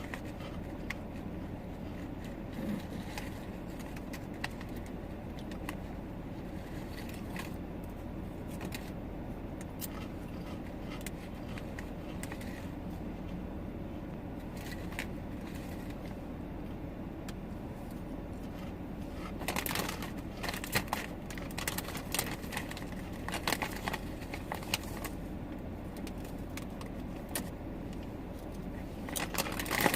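Steady low hum inside a car's cabin. From about two-thirds of the way in, and again near the end, comes a run of crinkling and crunching from a bag of chips being handled and chips being eaten.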